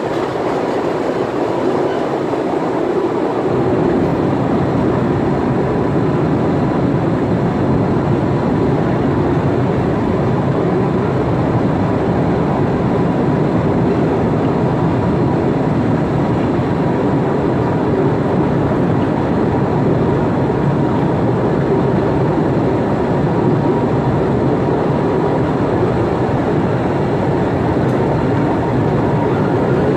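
Postojna Cave tourist train running steadily along its narrow-gauge track, a continuous rumble and rattle of the carriages and wheels on the rails, with the low rumble growing fuller about three seconds in.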